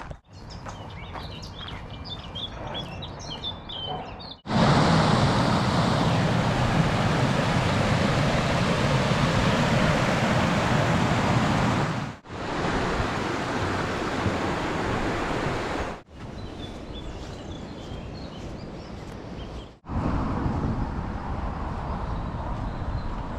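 Outdoor ambience in short cuts: faint birdsong, then a loud steady rushing noise for about eight seconds, a quieter rushing stretch, more faint birdsong, and rushing noise again.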